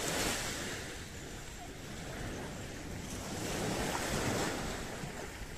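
Small waves washing onto a sandy beach, mixed with wind on the microphone. The wash swells just after the start and again around four seconds in.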